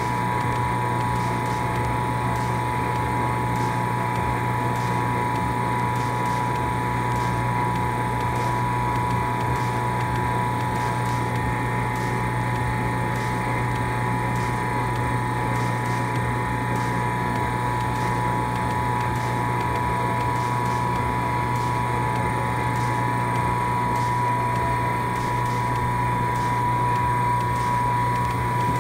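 Electric motor running steadily, a low hum with a constant high whine that never changes in level.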